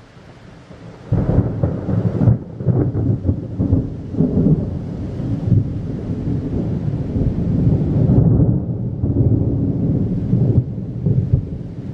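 Thunder: a sudden loud clap about a second in, then a long rolling rumble that swells and fades in waves and eases near the end.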